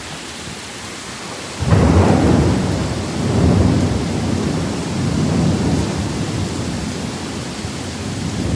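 Heavy rain falling steadily, with a thunderclap breaking in suddenly under two seconds in and rumbling on, swelling and fading, for the rest of the time.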